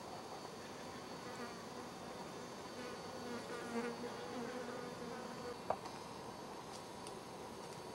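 A flying insect buzzing close by, wavering in pitch for a few seconds, then a single sharp click a little past halfway.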